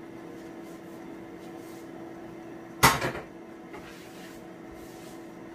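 A single sharp knock about three seconds in, followed by a smaller second knock, as things are put away while tidying a kitchen counter; a steady hum runs underneath.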